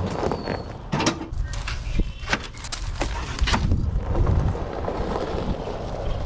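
Several sharp knocks and thumps of supplies (soil bags and plastic buckets) being set into a utility vehicle's cargo bed, over a steady low rumble.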